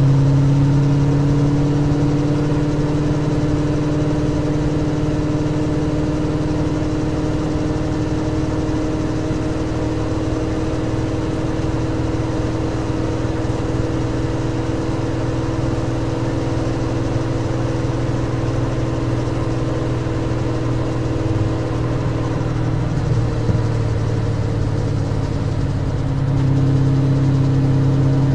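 Onboard engine sound of a Seven-style race car at speed on track, its note climbing slowly through a long full-throttle pull. About twenty-three seconds in the pitch drops as the car slows for a corner, then holds steady.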